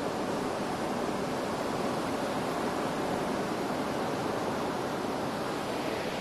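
Steady rushing of sea surf.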